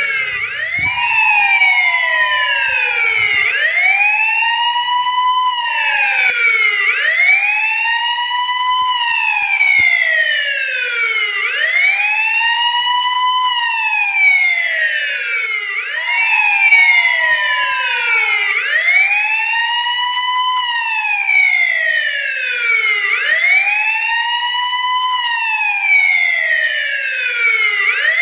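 Police car siren in wail mode: a loud tone sweeping up and down in pitch over and over, each rise and fall taking about three to four seconds.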